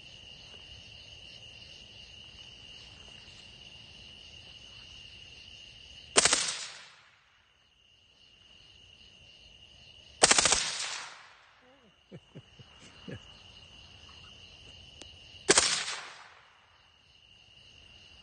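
Suppressed full-auto AR-15 with a 7.5-inch barrel firing three short bursts, about four to five seconds apart, each a quick rattle that dies away over about a second.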